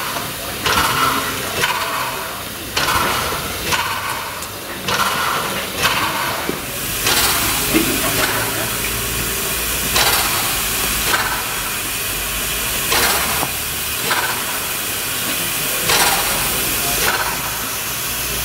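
Steam tank locomotive No 34 working slowly, its exhaust chuffing about once a second. About seven seconds in, a steady loud hiss of steam takes over, with only a few chuffs after it.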